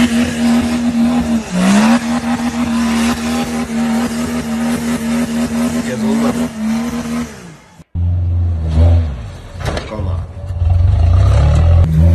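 Nissan 4x4 engine held at high revs under load, its note dipping and revving back up about a second and a half in. After a sudden cut near the end, a lifted pickup's engine runs with a much deeper note and a few knocks as it ploughs through deep snow.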